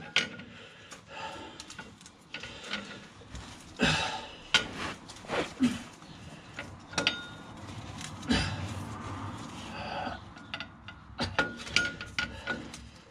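Irregular clicks and knocks of a clutch pressure plate being handled and worked into place against the flywheel, with the loudest knocks about four and eight seconds in.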